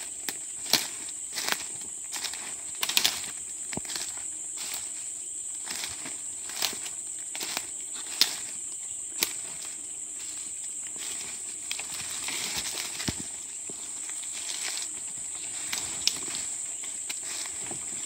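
Footsteps on dry leaf litter, a crackling step about every three-quarters of a second, over a steady high-pitched insect drone.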